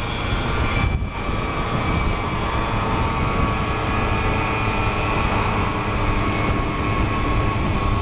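Simson moped's two-stroke engine running steadily under way, heard from a helmet-mounted camera.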